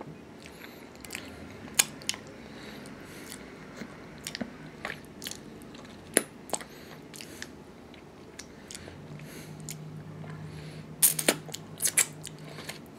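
A person eating, with chewing and biting and scattered sharp, crisp crunches that come thickest near the end. A low steady hum joins about two-thirds of the way through.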